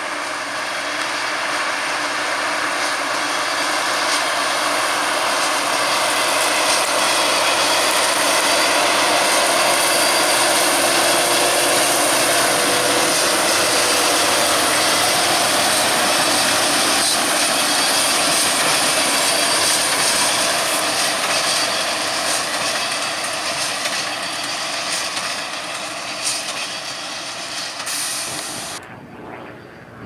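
Fendt 939 Vario tractor and Krone BiGPack large square baler running together while baling straw, a steady mechanical drone that grows louder as the outfit passes close by, then eases off. The sound drops away abruptly just before the end.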